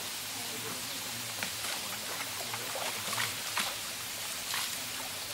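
Water scooped up and poured from a bowl over an elephant lying in a shallow river, with a string of short splashes over a steady rush of flowing water.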